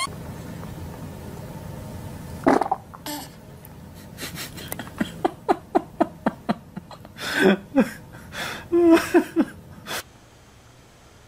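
A baby's fart about two and a half seconds in, followed by a run of quick, rapidly repeated laughter.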